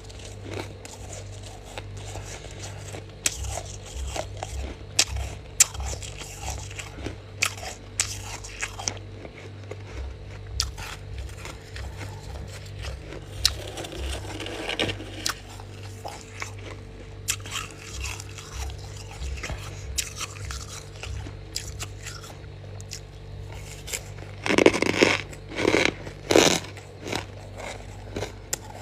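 Frost being bitten and chewed close to the microphone: a run of crisp, squeaky crunches and snaps, growing louder and denser for a few seconds near the end. A faint steady hum runs underneath.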